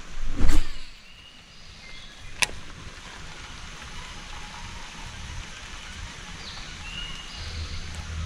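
Steady rush of creek water, with a loud thump about half a second in and a sharp click about two and a half seconds in.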